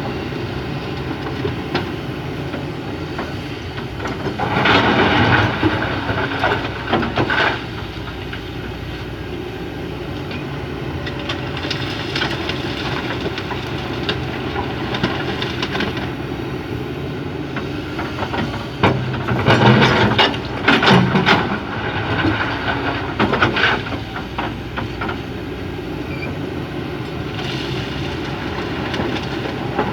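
Excavator's diesel engine running steadily while it works, with two louder stretches of rattling and knocking, about five seconds in and again around twenty seconds in.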